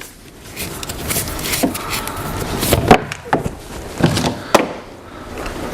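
Plastic knocks and clicks with rustling as a shop vac hose is fitted into a power sander's dust port and wrapped with painter's tape; about half a dozen sharp knocks.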